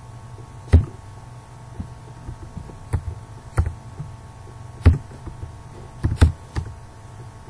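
Computer keyboard keystrokes: about seven separate, irregularly spaced clicks, each with a dull thump. A steady low electrical hum runs underneath.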